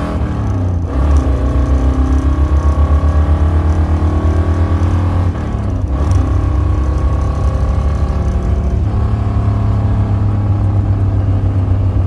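1968 Camaro's engine running loud through a chambered exhaust, pulled hard under throttle, with brief breaks about one second in and again about six seconds in as the manual gearbox is shifted. After the second shift it runs on at a steadier pitch.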